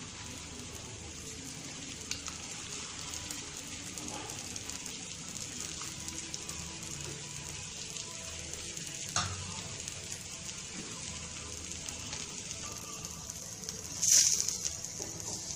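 Dosa frying in oil on a hot tawa, a steady sizzle. A few light clicks of a utensil on the pan, and near the end a louder scrape as a spatula goes under the dosa.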